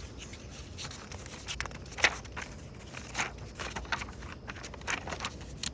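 Notebook pages being handled and turned: a run of irregular paper rustles and light ticks, the sharpest about two seconds in.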